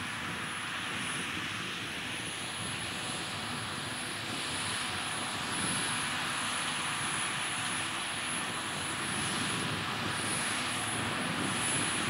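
Tractor engine running steadily under load as it pulls a front-and-rear plough rig through the ground, growing gradually louder as it comes closer.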